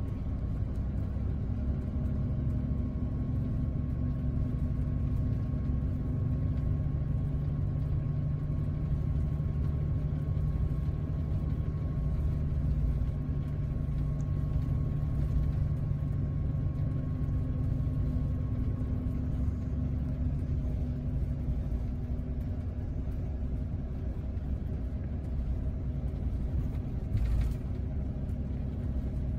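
Steady drone of a Scania double-decker coach's engine and tyres, heard from inside the upper deck as it cruises along the highway. A faint steady whine fades out about two-thirds of the way through, and there is a brief rush of noise near the end.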